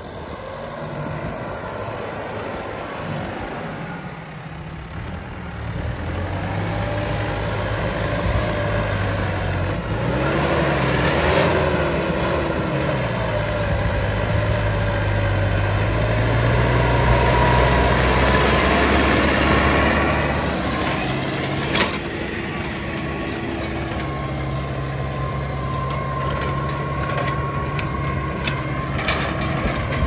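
Diesel tractor engine working under load as it pulls a mouldboard plough through pasture soil. It grows louder as the tractor comes close, with a brief waver in engine pitch partway through. A single sharp click comes a little after that.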